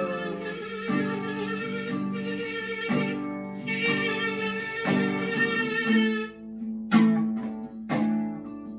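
Acoustic guitar strumming chords about once a second under a long held note with vibrato, which fades out about six seconds in; after that a few single strummed chords ring on.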